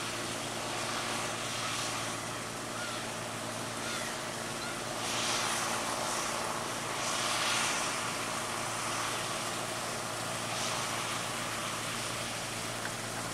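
Rice combine harvester running while it cuts and threshes paddy: a steady engine drone under a rushing machinery noise that swells louder twice, about five and seven and a half seconds in.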